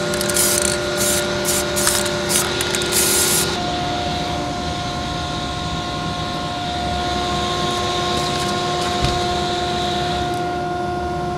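Aerosol spray can of trim black paint hissing in a quick run of short bursts for the first few seconds, then a steadier, fainter spray hiss.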